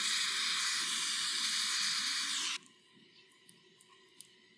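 Bernzomatic handheld gas torch burning with a steady hiss, heating heat-shrink tubing over a crimped cable lug, then cut off abruptly about two and a half seconds in; faint ticks of handling follow.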